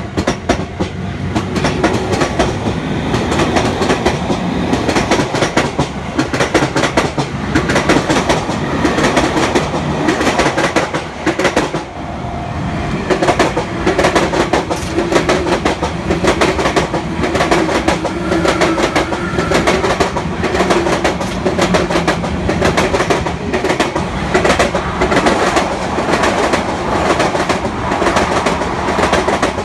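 Train wheels clattering over the rail joints at a level crossing: a loud, rapid run of clicks and knocks. The run dips briefly about twelve seconds in, then the clatter carries on.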